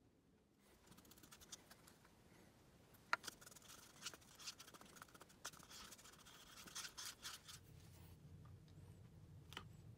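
Faint scraping and clicking of a stirrer against a plastic mixing cup as dyed epoxy is mixed, short irregular scratches for several seconds. Near the end the scraping stops and a low steady hum comes in, with one click.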